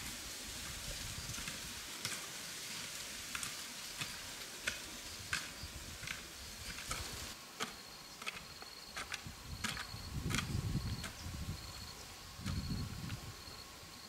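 Insects chirping, a high pulsed trill starting about halfway, over scattered sharp clicks and two low thuds near the end.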